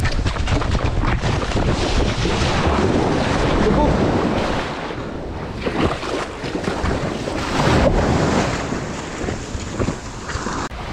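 Shallow surf washing up over wet sand, with wind buffeting the microphone and a few splashes and knocks as the skimboard is handled in the wash.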